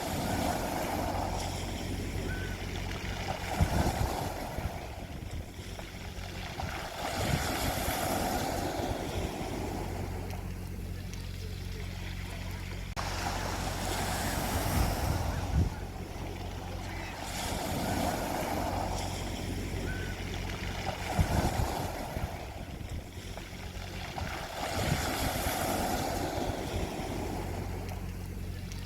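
Sea waves breaking on a beach, each wave swelling and washing back every three to four seconds, over a steady low rumble of surf and wind.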